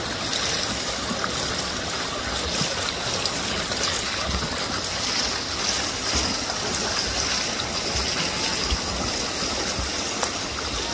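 Steady rushing and splashing of pool water churned by swimmers' backstroke arm strokes and kicks.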